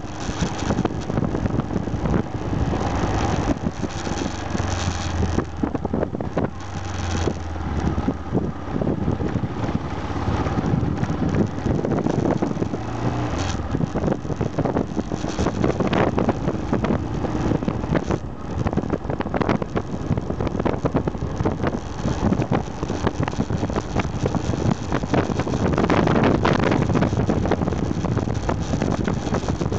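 Aprilia Pegaso 650 Strada's single-cylinder engine running as the motorcycle is ridden along, mixed with wind buffeting the microphone.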